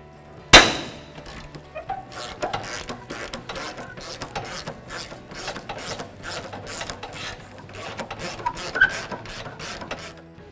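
Hand ratchet with a 14 mm swivel socket backing out an upper shock-mount bracket bolt, clicking in steady strokes of about three to four a second. A single sharp crack about half a second in is the loudest sound.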